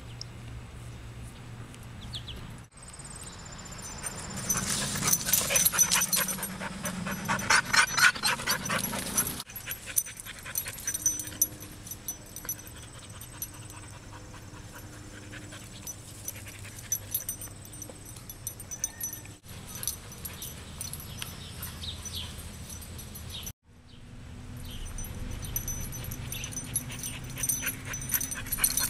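English springer spaniel panting, loudest from about five to nine seconds in, with the sound breaking off abruptly a few times.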